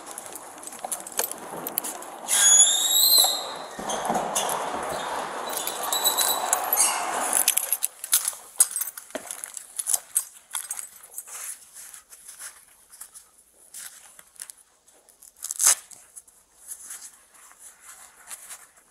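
Rustling and handling noise, with a short rising squeak about two and a half seconds in. After about seven seconds it drops to scattered light clicks and taps, with one sharper knock near the end.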